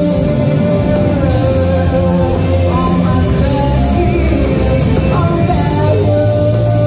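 A live rock band plays at full volume: electric guitar, electric bass and drums, with a woman singing.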